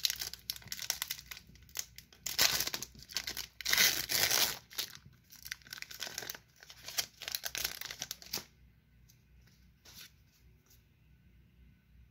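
Foil wrapper of a Pokémon trading card booster pack being torn open and crinkled as the cards are pulled out, in loud rustling bursts for about eight seconds, then only faint handling of the cards.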